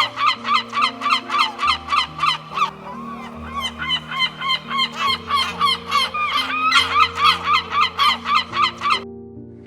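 An animal calling in a rapid, even series of short pitched calls, about four to five a second, over background music with long low notes; the calls stop abruptly near the end.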